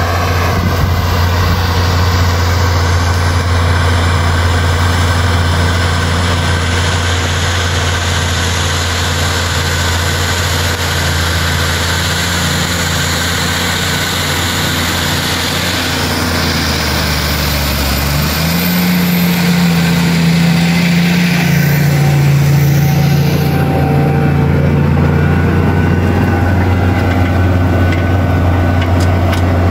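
Steyr 9145 tractor's six-cylinder turbo diesel engine running steadily under load while pulling a plough through the soil. The tractor passes close by, and its engine note shifts a little over halfway through.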